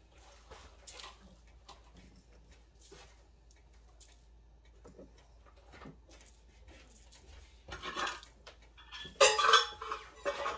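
Clatter of dishes and metal kitchen utensils near the end, two loud bursts of clinks with a brief ringing note; before that only faint small taps and ticks.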